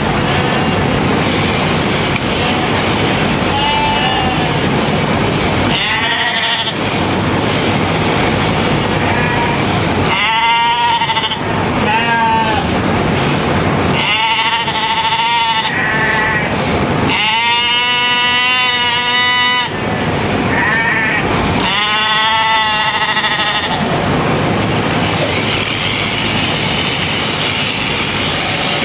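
Sheep bleating repeatedly: about eight wavering calls, the longest lasting about two seconds, over a steady rushing noise.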